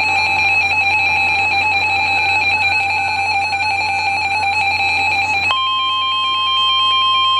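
A sustained set of steady electronic tones for about five seconds. These switch abruptly to the NOAA Weather Radio warning alarm tone, a single steady 1050 Hz tone lasting about two seconds, that heralds a severe thunderstorm warning broadcast.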